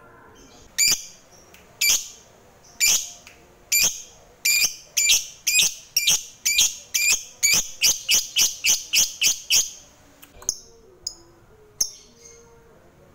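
A lovebird giving a long string of sharp, shrill chirps that start about a second apart and speed up into a rapid chatter, then break off, with a couple of single chirps after. This is the long chattering song (ngekek panjang) that hobbyists prize in a fighter lovebird.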